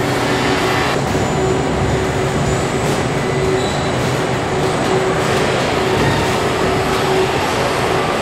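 Steady, loud machinery din of an automated truck body-shop line, with a humming tone that comes and goes and a few sharp clicks.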